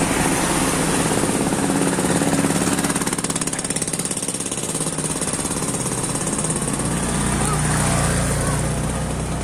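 A small engine running steadily close by, a rapid even pulsing beat with a low hum that grows deeper and stronger near the end.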